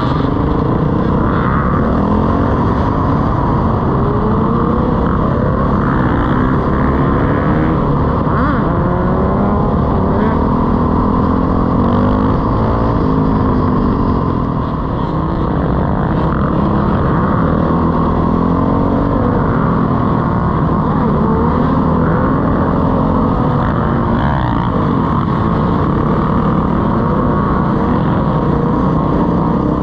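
Dirt bike engine running on the move, its pitch rising and falling over and over with throttle and gear changes, with other motorcycle engines around it.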